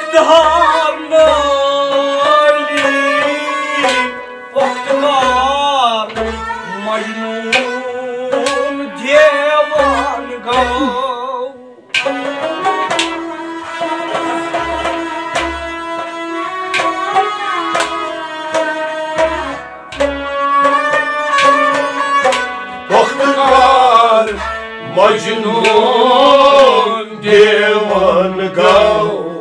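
Kashmiri Sufi music: a melody with wavering, ornamented glides over sustained lower notes, with a drum playing pairs of deep strokes every few seconds. The music dips briefly about eleven seconds in and comes back in a moment later.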